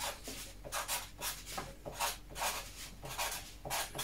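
Felt-tip marker writing on paper: a run of short scratchy strokes at irregular spacing as words and a number are handwritten.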